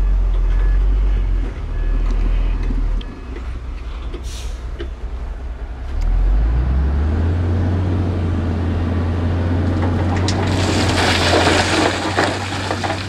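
Heavy diesel engine of earthmoving equipment running steadily, its note stepping up about six seconds in. From about ten seconds, loose rock fill crunches and clatters in a continuous rush.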